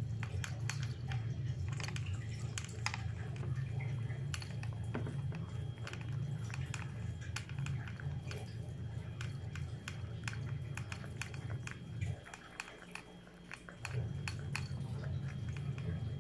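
A cat eating wet tuna-in-jelly cat food fast from a plastic bowl: quick, continuous wet chewing and lapping clicks. Underneath runs a steady low hum that drops out briefly about twelve seconds in.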